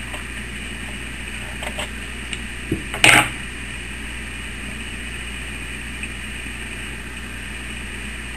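A few small clicks and one louder, short clatter about three seconds in, from handling tools and work, over a steady background hum.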